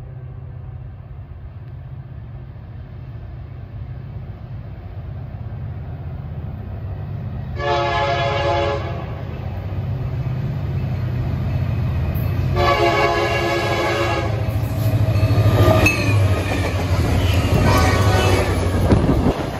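Union Pacific SD70M diesel locomotive approaching and passing at the head of a freight train. Its engine rumble grows steadily louder, and it sounds its horn twice, each blast a little over a second long and about five seconds apart. Wheel clatter comes in near the end as the locomotive goes by.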